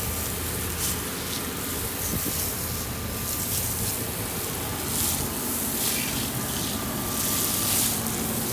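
Hot-water pressure washer spraying a warm chemical pre-treat onto a stone surface: a steady hiss of spray that swells and fades as the wand sweeps, over the steady hum of the running machine. The mix is applied to kill algae and loosen grime before surface cleaning.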